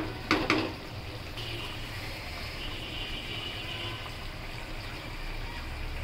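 A wooden spatula knocks against a nonstick wok a few times right at the start, then the thick onion-leaf and tomato curry simmers with a steady bubbling hiss over a low steady hum.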